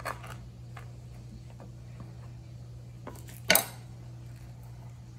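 A large kitchen knife cutting through a crispy chicken burger on a bamboo cutting board, with faint taps and scrapes, then one sharp clack about three and a half seconds in as the metal knife is set down. A low steady hum runs underneath.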